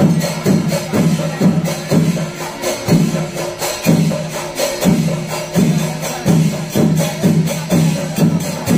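Kerala temple percussion ensemble of drums and hand cymbals playing a fast, steady rhythm, with strong accented drum strokes about twice a second and a bright, continuous metallic clash above them.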